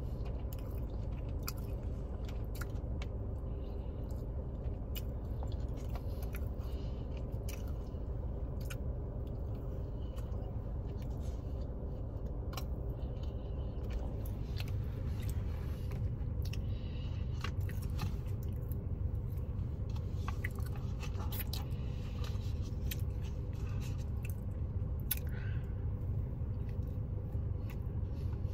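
A person chewing a soft biscuit with scattered small mouth clicks and smacks, over a steady low hum inside a car cabin.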